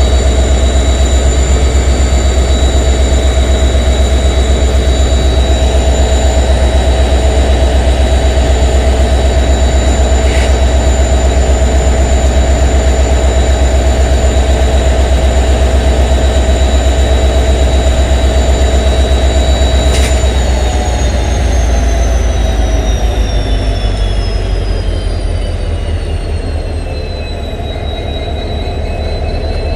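WDG4 diesel locomotive's EMD 710 sixteen-cylinder two-stroke engine running with a deep, steady hum and high whines over it. About two-thirds of the way through, the whines slide down in pitch and the sound eases slightly as the locomotive winds down.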